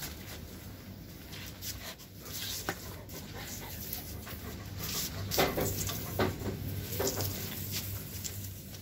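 Labrador retriever panting in a run of short breaths, louder in the second half.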